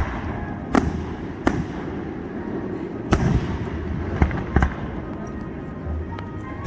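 Aerial fireworks shells bursting overhead: a string of about five sharp bangs, irregularly spaced, over a steady background rumble.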